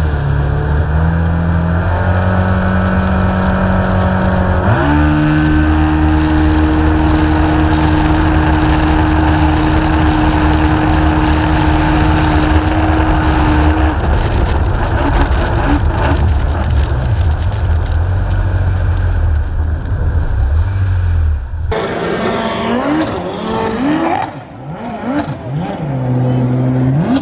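Supercharged Yamaha jet ski engines running hard at full throttle, a steady high drone that steps up in pitch with a quick rise about five seconds in. Near the end it changes abruptly to shorter revs that rise and fall.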